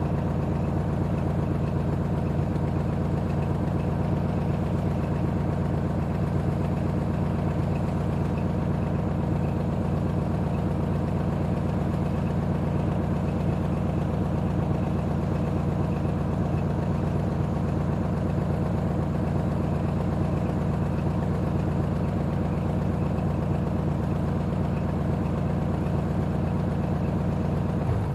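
Old car engine idling steadily with an even, low hum, then cutting off right at the end as it is switched off.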